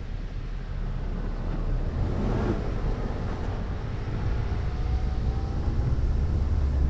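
2004 Ford Focus running on the move: a steady low engine and road rumble that grows louder, with a faint whine rising in pitch in the second half.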